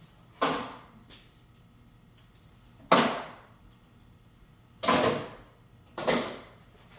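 Sharp metallic knocks while working apart a rusted Browning BPS shotgun: four hard strikes spread a second or two apart, with a lighter tap just after the first, each ringing briefly.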